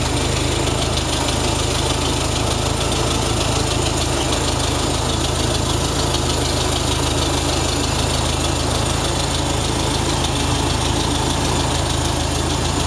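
1949 Farmall Super A tractor's four-cylinder engine running steadily at a low, even speed. It runs smoothly, with no odd noises.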